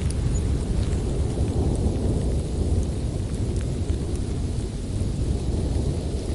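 Steady low rumble of a winter storm, with a few faint ticks scattered on top.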